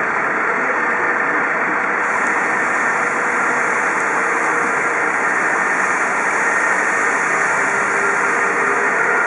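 Steady street traffic noise with vehicle engines running at a junction, no siren sounding, growing slightly louder toward the end.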